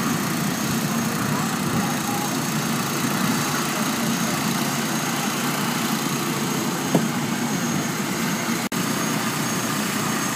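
Small gasoline engine of a portable hydraulic rescue-tool power unit running steadily, powering the extrication tools.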